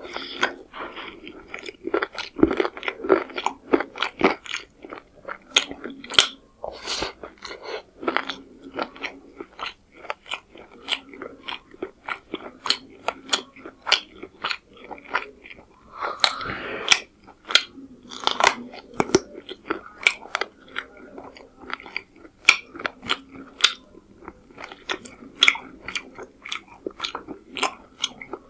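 Close-miked chewing and mouth smacking while eating chicken curry with pulao rice by hand, a dense, irregular run of sharp wet clicks and crunches.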